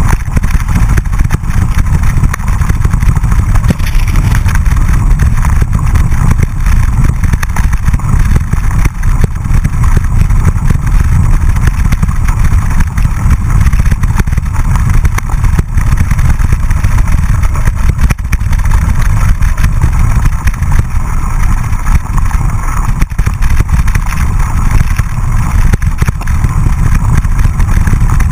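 Loud, steady rumble of wind and road vibration on a handlebar-mounted camera as a mountain bike rides over rough dirt, grass and cobbles, with constant small jolts and rattle from the bumps.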